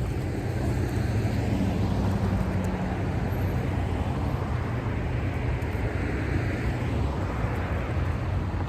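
Road traffic noise: a steady low engine hum, with a vehicle's tyre noise swelling and fading through the middle.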